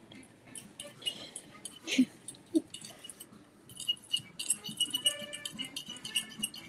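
Metal spoon stirring melted chocolate in a ceramic bowl, clinking and scraping against the bowl in small irregular clicks. In the second half a faint steady pitched sound, like faint music, runs underneath.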